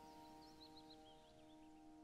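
Very faint closing music: a held chord slowly fading out, with quick high chirps, as of birdsong, above it.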